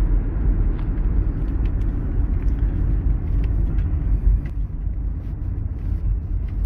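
Steady low road and engine rumble inside a moving car's cabin, with a few scattered faint ticks.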